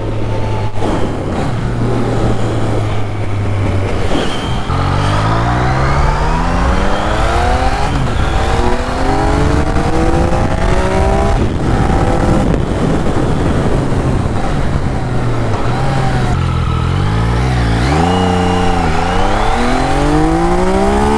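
Yamaha XSR900's three-cylinder engine, breathing through an aftermarket MIVV Oval Carbon exhaust, while the bike is ridden. It runs steadily at low revs for about four seconds, then accelerates through the gears, the engine note climbing and dropping back at each shift, with another rise near the end.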